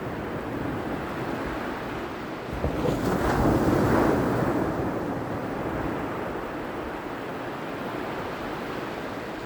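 Ocean surf: a continuous wash of waves that swells louder as a wave breaks about three seconds in, then eases back.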